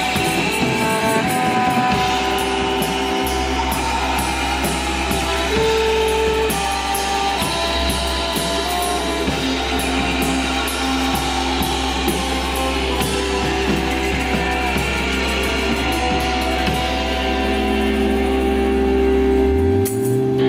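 Live rock band playing an instrumental passage: guitar over a drum kit with regular cymbal hits and low sustained bass notes. Near the end the drumming drops away, leaving held guitar notes ringing.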